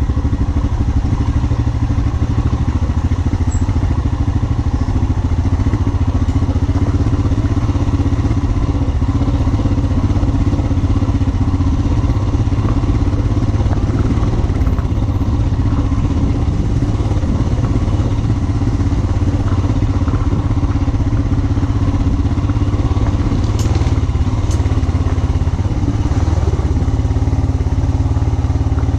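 Royal Enfield Himalayan 411's single-cylinder engine running at a steady, low engine speed as the motorcycle rides off-road, with little change in pitch. Two faint clicks come about two-thirds of the way through.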